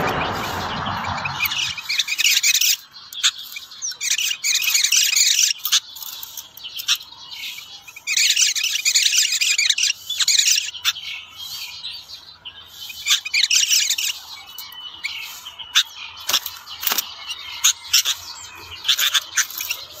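Songbirds singing: repeated bursts of rapid, high chirping and warbling phrases with short gaps between them. A broad rushing noise fades out within the first second or two.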